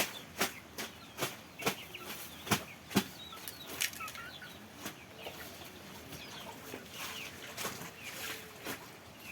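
Domestic fowl calling in short squeaky notes, mixed with many sharp taps or flaps that come about once or twice a second.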